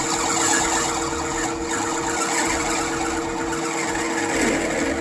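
Metal-turning centre lathe running steadily, its motor and gearing giving two steady tones over a constant hiss, as a left-hand tool faces off the end of a spinning brass bar.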